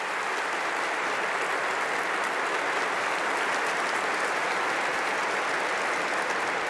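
Congregation in the pews applauding, a steady, even clapping from many hands.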